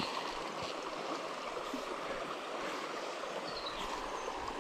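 Shallow creek water running steadily over a stony riffle.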